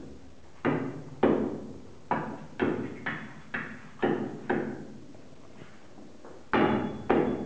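Machete blade chopping into a small block of cedar held on a wooden stump: about ten sharp strikes at roughly two a second, with a pause before the last two.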